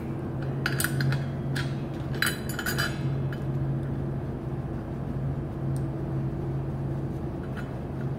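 Light metallic clinks of a CO2 regulator's brass fitting being handled and unscrewed from the tank valve, several in the first three seconds, over a steady low hum.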